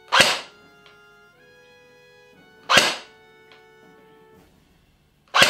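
Three single semi-auto shots from an AGM MP40 airsoft electric gun, about two and a half seconds apart, each a sharp, loud crack. The gun is being fired through a chronograph, reading roughly 310 to 320 FPS.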